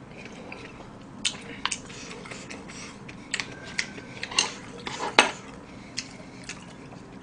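Eating utensils clinking: a spoon tapping and scraping in a small bowl, then chopsticks clicking against a plate, in a scattering of sharp separate clicks.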